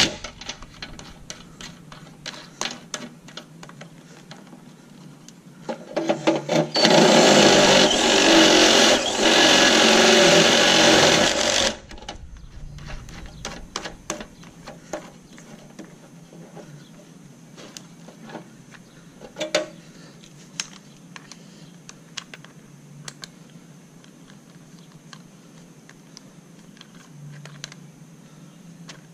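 Cordless drill with a step drill bit boring a port hole through the steel lid of an ammo can: a steady, loud cutting run of about five seconds, starting about six seconds in and stopping abruptly. Light clicks and taps before and after.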